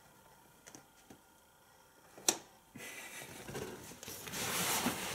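A single sharp tap a little over two seconds in, then the thin fabric of a pop-up kids' play tent rustling as it is pushed and brushed, growing louder toward the end.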